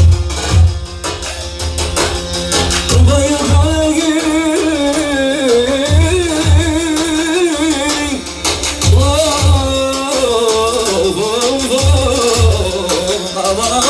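Folk-style music with a wavering, ornamented melody that comes in about three seconds in, over a heavy low drum beat that falls in pairs of hits about every three seconds.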